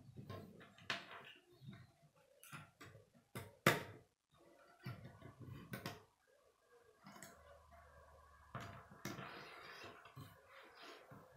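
Plastic K'nex rods and connectors clicking and snapping as they are fitted together and handled, with faint rustling in between. The clicks come irregularly, about a dozen in all, the sharpest one a little under four seconds in.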